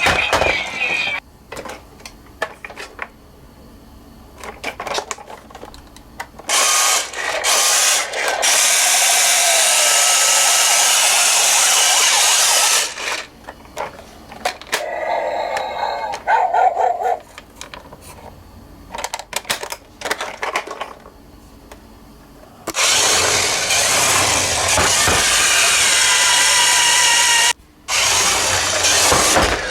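Toy ambulance and police minicars running down a slope: two long whirring, rattling runs of several seconds each, with clicks and knocks of the toys being handled between them.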